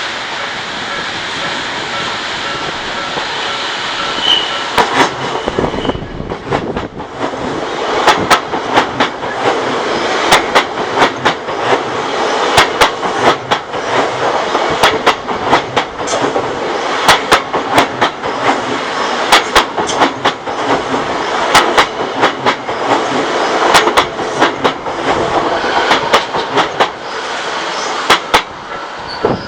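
Odakyu Odawara Line electric train passing over a level crossing. Its wheels clack over the rail joints in a long run of sharp knocks, many in close pairs, starting about six seconds in and lasting until near the end. Before the knocks begin there is a steady rush with a repeating ringing tone from the crossing warning bell.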